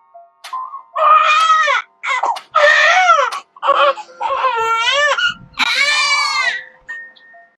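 Infant crying: about five high-pitched wails, each under a second long and arching up and down in pitch, starting about a second in.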